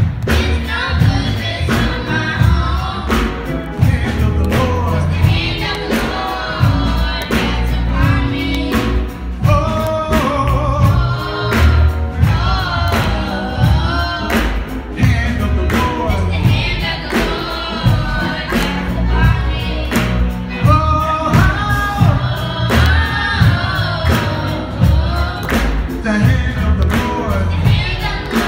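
Youth gospel choir singing with a live band: electric guitar, heavy bass and a steady drum beat.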